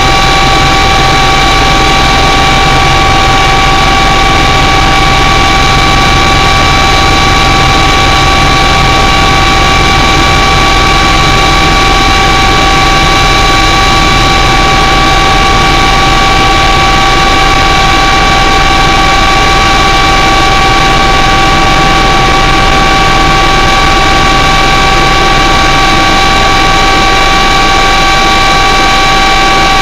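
Aircraft engines heard from inside the cabin as the plane moves along the runway: a loud, steady drone with several high whining tones held at constant pitch.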